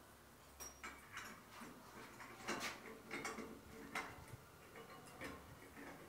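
Faint scattered clicks and light metal knocks as a chrome shower mixer is handled and fitted onto its threaded wall connectors, the sharpest taps about two and a half and four seconds in.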